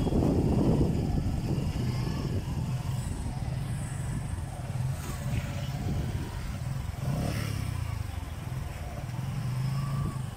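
Small motorcycle or scooter engine running steadily at low road speed, with road noise. It is loudest in the first second.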